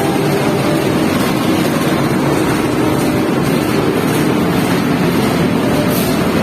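Passenger train running at speed: a steady, loud rumble and rush of the moving train.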